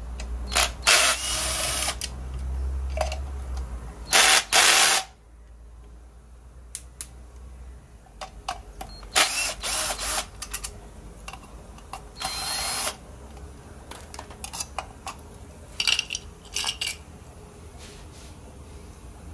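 Cordless drill/driver backing out the screws of a compressor's terminal cover, running in about five short bursts with small clicks between them.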